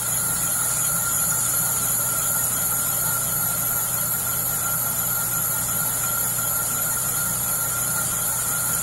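Metal lathe running steadily as a boring bar cuts the cylinder bore in a VW engine case half spinning on the faceplate. It makes an even hum with a steady higher whine and high hiss, unchanging throughout.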